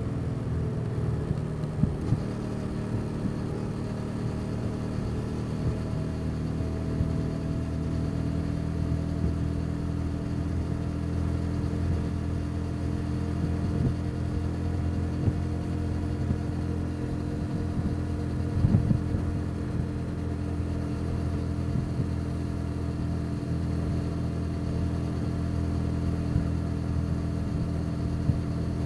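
Motorcycle engine running steadily at a nearly constant speed while riding, with a few short knocks about two seconds in and again past the middle.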